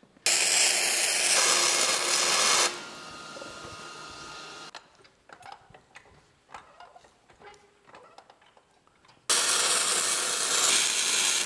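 Electric arc welding in two runs of about two seconds each, a steady crackling hiss, as a caster mounting plate is welded to a square-tube steel table leg. Between the two runs come quiet clicks and knocks as the caster and leg are handled.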